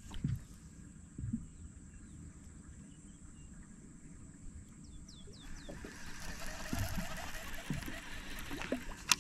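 Quiet ambience on the water, with a bird giving a few short, quick down-slurred chirps about five seconds in. After that comes a steady rushing noise of unclear source lasting a few seconds, and a sharp click near the end.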